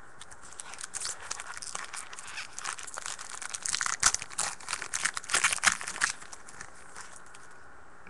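A trading-card pack wrapper being torn open and crinkled, many quick crackling snaps over several seconds, loudest past the middle, then stopping.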